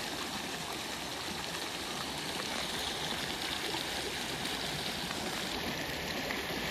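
Shallow river riffle running over gravel: a steady rush of moving water.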